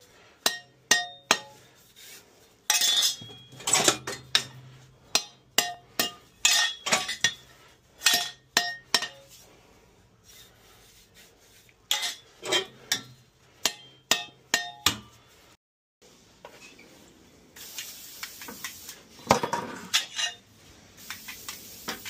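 Metal clinks and knocks, many with a brief ringing, as steel gas burner tubes of a Burnham Independence steam boiler are pulled from the burner tray and handled. A hiss joins in near the end.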